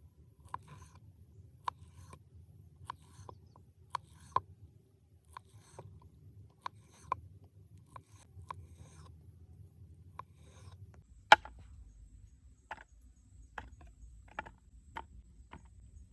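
Irregular sharp taps and knocks, about one or two a second, over a low steady hum; the loudest knock comes about eleven seconds in.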